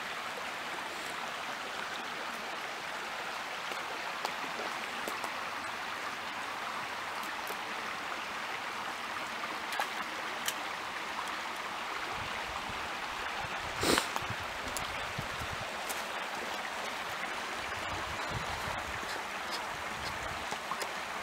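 A small creek running, a steady rushing hiss of flowing water. A single sharp click about fourteen seconds in, with low rumbling after the midpoint.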